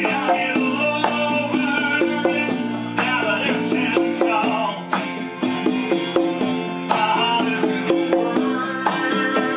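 Acoustic guitar song with bass, its playback from a computer joined by congas played live by hand: open tones and slaps struck in a steady rhythm over the strumming.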